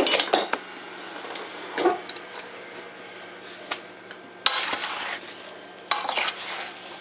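Chopped fruit, flour and sugar being stirred in a stainless steel pot: a utensil scrapes and clinks against the metal pot in several short bouts, the loudest about four and a half seconds in.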